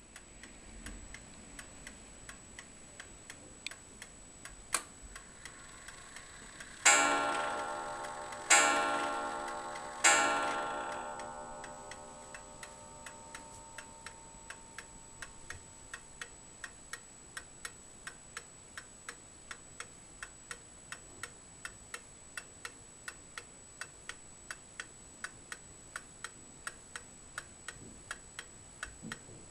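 Black Forest frame clock with a Glatz movement ticking steadily. A sharp click comes about five seconds in, then it strikes three o'clock: three loud ringing strokes about a second and a half apart, each fading slowly, the last dying away over several seconds while the ticking goes on.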